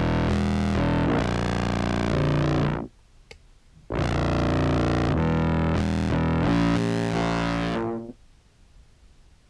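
Contrabass clarinet played through a fuzz and OBNE Float filter pedal chain, giving distorted, sustained low notes. There are two phrases: the first ends about three seconds in, and the second runs from about four seconds to eight seconds.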